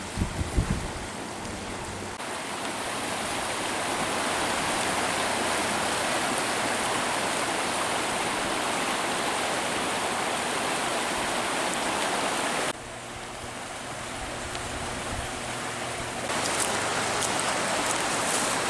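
Steady rush of flowing creek water, with a level that changes abruptly a few times. There is low wind rumble on the microphone in the first second.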